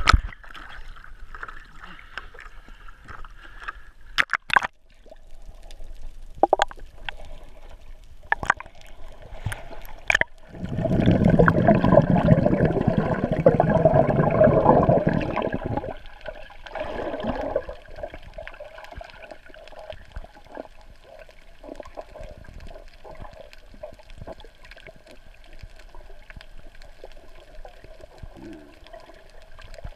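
Water heard through an action camera at and below the surface: scattered knocks and splashes in the first ten seconds, then a loud rush of bubbles lasting about five seconds, then a steady, muffled underwater noise.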